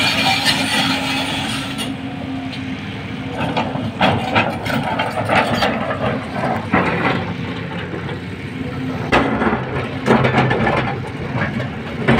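Volvo crawler excavator's diesel engine running with a steady hum, with a series of clanks and knocks about four to ten seconds in as the bucket digs and scrapes through earth and rocks.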